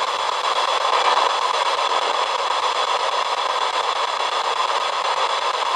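Spirit box radio static: a steady hiss with no voice coming through.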